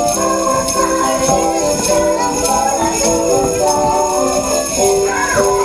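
Sleigh bells shaken by a group of children to a steady beat, jingling over music with a melody.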